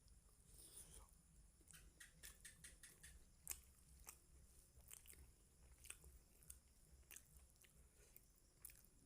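Faint close-up chewing of chicken liver and gizzard curry with rice: irregular soft wet mouth clicks and smacks, a few a second.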